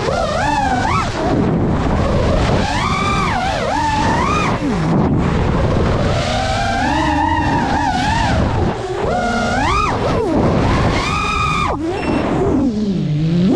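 FPV quadcopter's motors and propellers whining, the pitch swooping sharply up and down again and again as the throttle is punched and cut through dives and turns, over a steady rushing noise.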